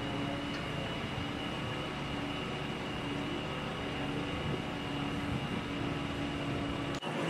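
Truck-mounted crane's diesel engine running steadily while it hoists a boat hull on slings, with a steady hum and a thin high whine over it; the sound cuts off abruptly near the end.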